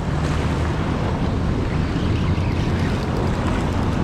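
Fast, churning river water rushing past the shore, with wind rumbling on the microphone, a steady noise throughout.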